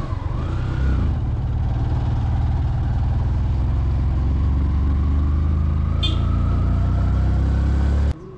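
Motorcycle engine running steadily on an uphill ride, with a heavy low rumble and a thin whine that slowly rises. A brief high-pitched chirp comes about six seconds in, and the sound cuts off suddenly just before the end.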